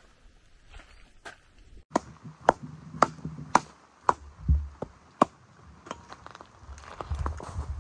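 Wooden sticks and branches being handled on the ground, giving a run of about seven sharp woody cracks, roughly one every half second, then a rustling stretch near the end.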